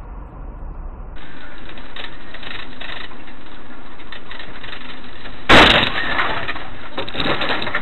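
Steady loud road noise from a dashcam, then a car crash about five and a half seconds in: a sudden loud impact with breaking glass, followed by a noisy tail.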